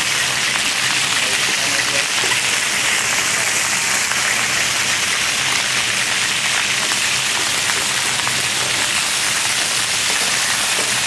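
Chicken pieces sizzling steadily as they pan-fry in a wide paella pan.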